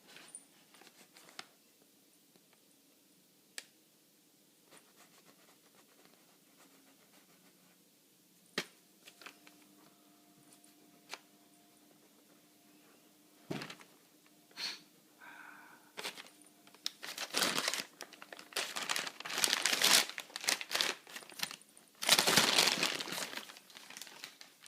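A newspaper rustling and crinkling as a kitten plays with it: scattered faint taps and rustles at first, then a long run of loud crinkling over the last seven seconds or so.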